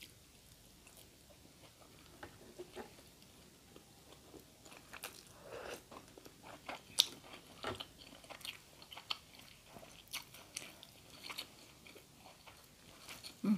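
A person chewing a mouthful of crunchy pounded cucumber salad close to the microphone: scattered crisp crunches and wet mouth clicks, a few louder about halfway through.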